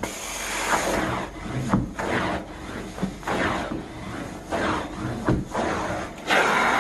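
Carpet pile being scrubbed with an agitation brush in repeated back-and-forth strokes, a rough rubbing sound at about two strokes a second. Near the end a steady machine sound with a high whine starts up.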